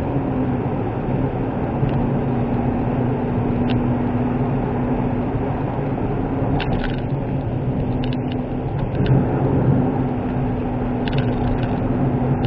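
Inside the cabin of a Suzuki Wagon R (MH23S) kei car on the move: a steady hum from its 660 cc three-cylinder engine with tyre and road noise, and a few faint clicks.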